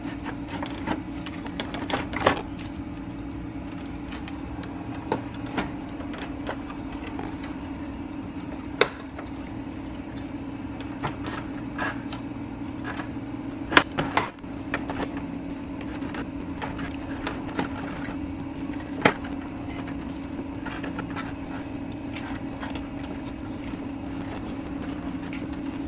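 Plastic knocks and scrapes as the radiator cooling fan and shroud assembly is worked loose and lifted out of the engine bay, with a few sharp clunks about 2, 9, 14 and 19 seconds in, over a steady low hum.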